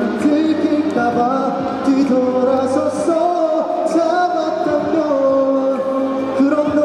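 Male singer singing live into a microphone over backing music, holding long notes in the second half.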